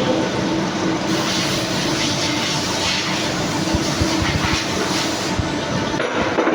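CNC machine running: a steady mechanical noise with a low, even hum and a few low thuds around the middle.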